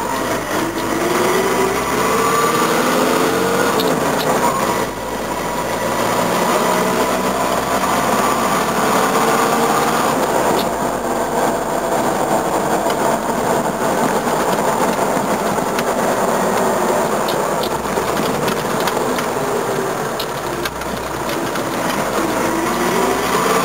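Toyota BJ40 Land Cruiser's diesel engine heard from inside the cab while driving. The engine revs up through the gears, its pitch climbing and then falling back at shifts about five and about ten seconds in, and it climbs again near the end.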